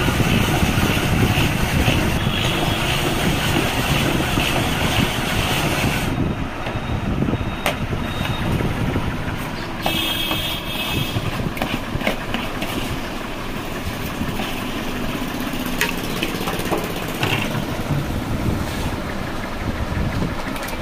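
Motorized ice-shaving machine running and grinding down a block of ice. The grinding cuts off sharply about six seconds in, leaving a lower, steady rumble with a few light clicks.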